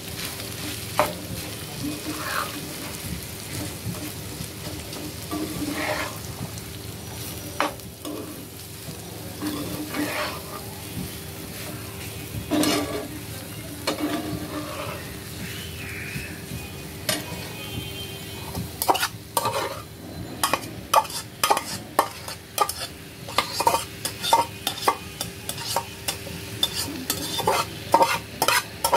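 Snake gourd slices, onion and grated coconut sizzling in oil in a frying pan while a metal spatula stirs and scrapes through them. From about two-thirds of the way through, the spatula knocks and scrapes against the pan rapidly, several times a second.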